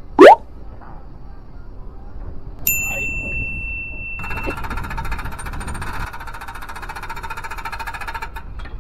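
Skycon powered ship-side work platform: a single electronic beep about three seconds in, then a dense electric whine and buzz from its drive from about four seconds until just before the end. A short, loud rising whoosh sounds right at the start.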